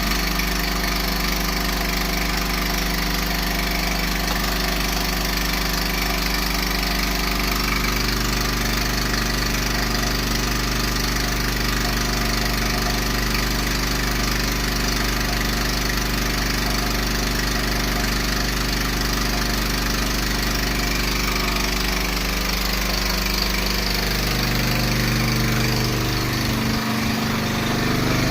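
Portable 3 kW four-stroke generator engine running steadily, its pitch shifting a little near the end.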